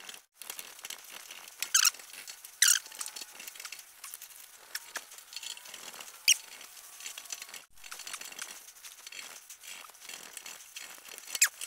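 A knife cutting and scraping through a splintered tree limb, with steady crackling and rustling and a few short, sharp squeaky scrapes: two close together about two seconds in, one past six seconds and one near the end.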